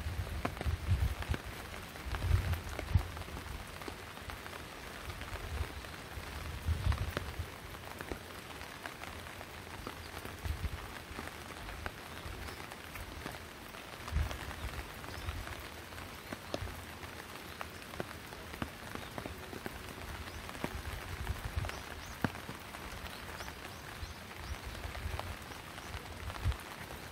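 Steady rain falling, with many sharp ticks of single drops landing close by. Irregular dull low thumps come and go, most of them in the first several seconds.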